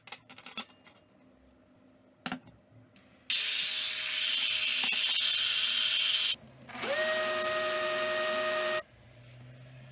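Steel fork and spoon clicking as they are set down on a table. Then a small rotary tool with a cutting disc runs with a loud hiss for about three seconds. After a short break a cordless drill spins up with a rising whine and runs steadily for about two seconds, drilling into a stainless steel spoon handle clamped in a vise.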